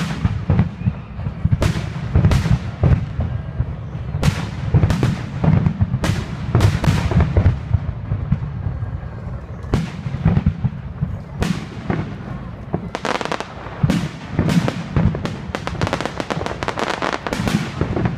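Fireworks display: sharp bangs of bursting shells one after another, each trailing off in an echo, over a constant low rumble. About two-thirds of the way in the bursts come thicker and faster, in a dense run of crackling reports.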